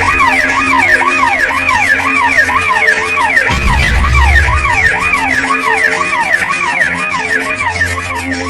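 Siren sound effect in a DJ competition mix, its pitch sweeping rapidly up and down about two to three times a second. A deep bass swell comes in briefly about three and a half seconds in.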